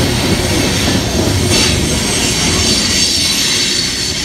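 Coal train's freight hopper cars rolling past close by: a steady, loud rumble of wheels on the rails, with a high-pitched hiss from the wheels joining about a second and a half in.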